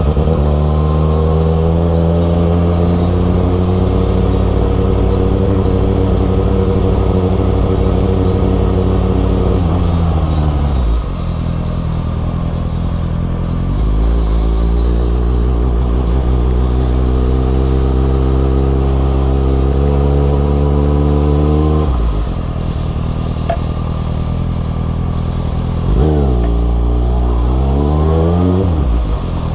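Kawasaki Ninja ZX6R's inline-four engine pulling at steady revs under riding. It eases off about ten seconds in, pulls again and eases off around twenty-two seconds. Near the end it gives a quick rise and fall in revs.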